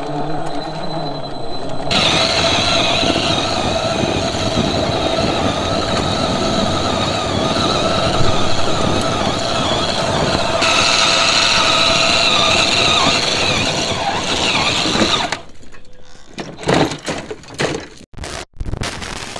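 A 1/10 scale RC rock crawler's electric motor and geartrain whine steadily under load as its tyres spin on loose dirt. The sound jumps abruptly about two seconds in and again near the middle. Near the end the whine drops away into a few short, choppy bursts.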